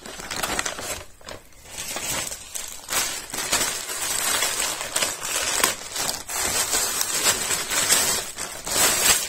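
Parcel packaging crinkling and rustling with many sharp crackles as it is handled and opened.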